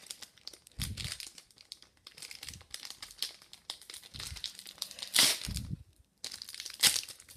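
Foil wrapper of a 2011-12 Victory Hockey card pack crinkling and crackling irregularly as hands grip and pull at it, trying to tear it open, with louder crackles about five and seven seconds in.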